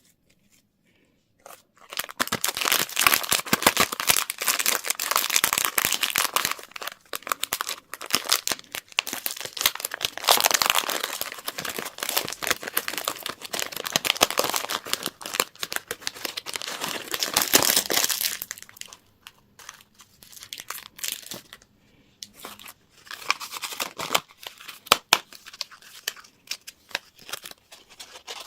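Candy wrappers crinkling and tearing as they are unwrapped by hand. A dense run of crinkling starts about two seconds in and thins after about nineteen seconds to scattered crinkles and clicks.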